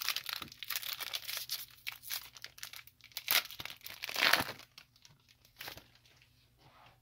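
A Pokémon Shining Fates booster pack's foil wrapper being torn open and crinkled by hand. It crackles continuously for the first four or so seconds, loudest around three and four seconds in, then gives a few scattered crinkles as it is put down.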